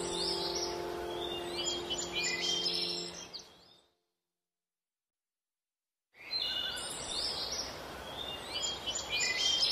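Small birds chirping and twittering in quick repeated calls while the held notes of a music track fade out. About four seconds in, the sound cuts to complete silence for a little over two seconds, then the birdsong comes back.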